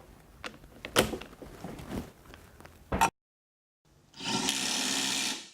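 Bosch GDS 18 V-LI cordless impact wrench running in one steady burst of about a second and a half, after a few light clicks and knocks of handling.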